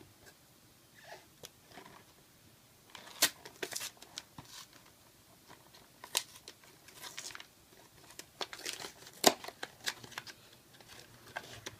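Crinkling, crackling and tearing of packaging as a sealed Yu-Gi-Oh! Premium Gold box is opened by hand, in irregular sharp bursts with short pauses, the loudest about nine seconds in.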